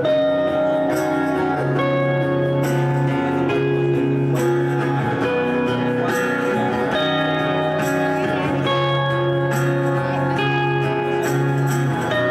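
Live band playing an instrumental passage, led by a semi-hollow-body electric guitar through a Marshall amplifier, with held notes that change every second or so over a steady low bass line.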